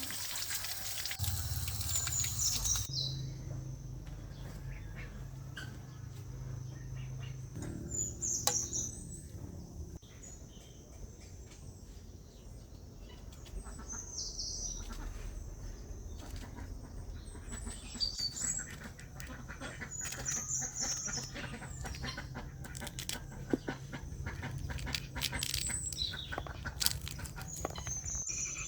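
Short, high bird chirps recurring every few seconds over a low steady hum, with scattered light clicks and taps.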